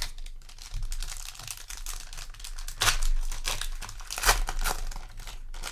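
Foil trading-card booster pack wrapper being crinkled and torn open, a run of crackles with louder ones about three and four seconds in.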